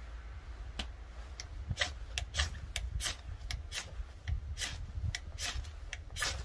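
Ferrocerium rod scraped with a knife in a quick, irregular run of short rasping strokes, several a second, throwing sparks.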